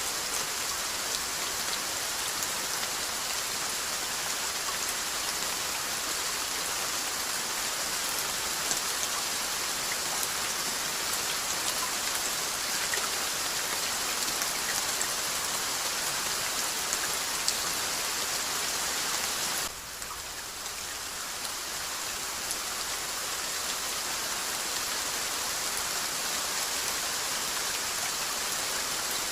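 Steady rainfall: a continuous hiss of rain with faint scattered drop ticks. About two-thirds of the way through, the rain drops suddenly in level and builds back up over a few seconds.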